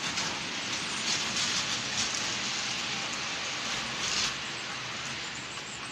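H0-scale model freight train, a diesel locomotive and its wagons, running on the layout track past the microphone: a steady rushing rattle of wheels on the rails. It grows louder in two stretches, about a second in and again near four seconds in.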